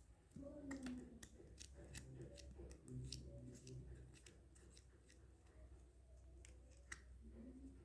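Faint, scattered clicks and snips of packaging being handled and opened by hand.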